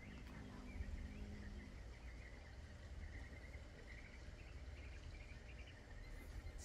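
Faint outdoor back-yard ambience: a low rumble with a thin, high, broken chirping through most of it.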